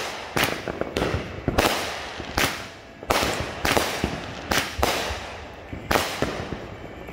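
Aerial consumer fireworks shot from a multi-shot launcher in quick succession: about ten sharp bangs, one every half second to a second, each trailing off in a fading hiss.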